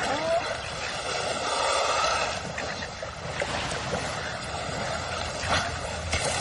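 Steady wash of water noise along the shore, with one short call about a quarter second in.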